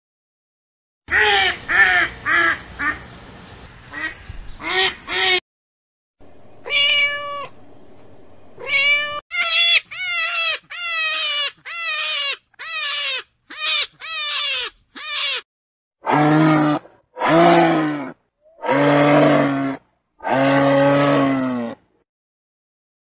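A sequence of different recorded animal calls. First come short high calls with falling pitch, then a quick run of about nine short high squeals. It ends with four long, low calls typical of a camel.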